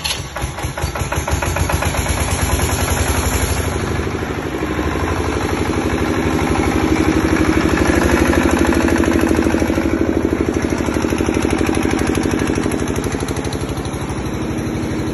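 A 5 kVA diesel generator set's single-cylinder, water-cooled diesel engine, just started by its push-button electric starter, runs steadily with an even chugging beat.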